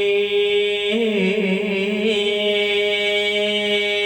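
A male voice singing a long, held note on a drawn-out word of a Vietnamese cải lương song, with a slight waver about a second in, over musical accompaniment.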